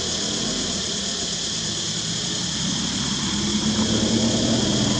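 A low engine hum, growing louder in the second half, over a steady high-pitched insect drone.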